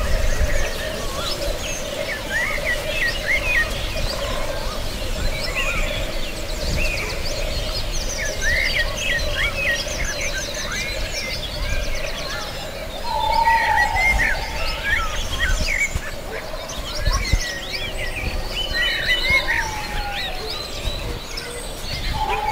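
Many songbirds chirping and trilling together in a forest soundscape, over a steady low drone, with a short lower call about 13 seconds in.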